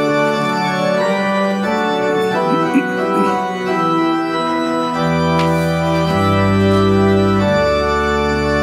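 Church organ playing the introduction to a congregational hymn in held, sustained chords, with low pedal bass notes coming in about five seconds in.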